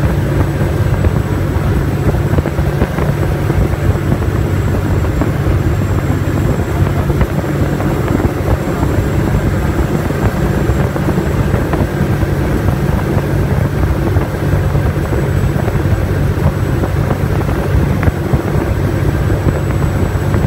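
Steady drone of a high-speed passenger boat's engines running at cruising speed, with water rushing along the hull and a thin, steady high whine.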